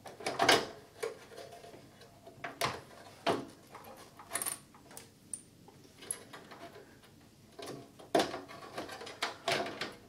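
A graphics card being worked into the PCI Express slot of a PC tower case: scattered clicks, knocks and scrapes of hard parts against each other, loudest about half a second in and again near the end.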